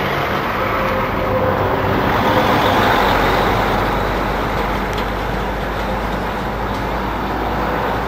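Road traffic: a motor vehicle passes close by, swelling about two to three seconds in, over a steady low engine rumble.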